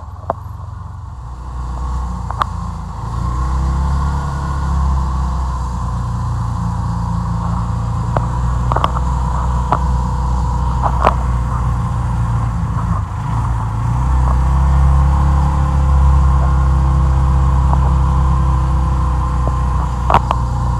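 A car driving: a steady low engine and road rumble that builds about two seconds in and again around fourteen seconds, with scattered knocks and rattles.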